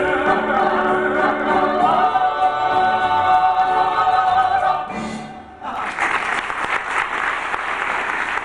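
Stage-musical cast singing the held closing notes of a number with the music, ending about five seconds in; then a theatre audience applauds.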